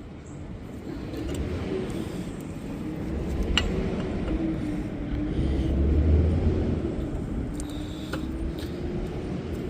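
Wind rumbling on the microphone, with a motor vehicle's engine hum rising and falling in pitch as it passes, and a couple of light metal clicks.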